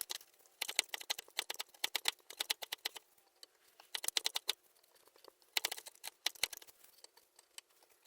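Knife carving a small piece of wood against a wooden board, sped up: rapid dry clicks and scrapes in several bursts, with short pauses between them.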